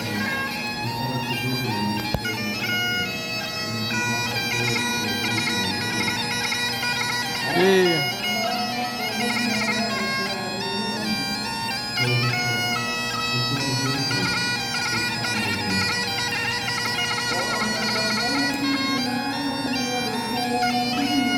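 Bagpipes playing a tune over a steady drone, the melody stepping between held notes. About eight seconds in, a short sliding cry cuts across, the loudest moment.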